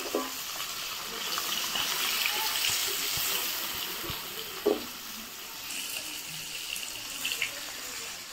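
Hot mustard oil sizzling in a black wok. The sizzle swells about a second in as sliced bitter gourd goes into the oil. A metal spatula knocks against the pan and plate a few times, loudest with one sharp clack a little past halfway.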